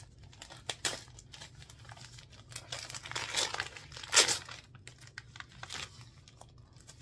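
Gift wrap being torn and crumpled by hand as a present is unwrapped: scattered rustles and crackles, with a louder tearing stretch about three seconds in and the sharpest, loudest rip just after four seconds.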